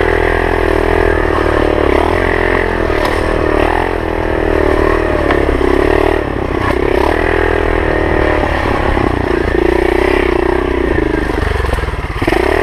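Pit bike's small single-cylinder engine revving hard while ridden along a rough trail, its pitch dropping and climbing again several times as the throttle is rolled off and back on, with knocks and rattles from the bike over the bumps.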